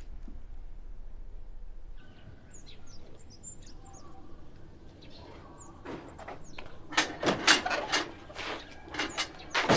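Birds chirping, then, about six seconds in, a heavy old wooden double door is pushed open with loud knocks and clatter as hurried footsteps come through.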